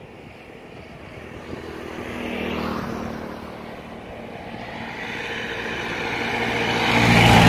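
Chery Tiggo 5x SUV driving past on an open highway: engine and tyre noise swell as it approaches and are loudest near the end. A smaller swell of passing-vehicle noise comes about two to three seconds in.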